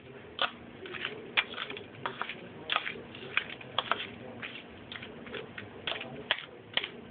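A spoon stirring Cheerios in a bowl, clicking and scraping against its sides in short irregular knocks, a few each second.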